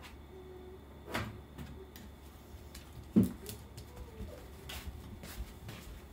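A few scattered knocks and thumps from someone moving about in a room, the loudest about three seconds in, with light rustling between them.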